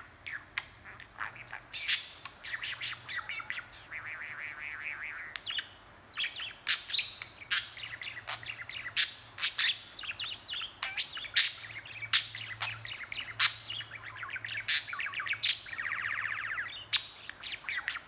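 Budgerigar chattering: a continuous warble of sharp clicks and chirps, with buzzy trilling passages a few seconds in and again near the end.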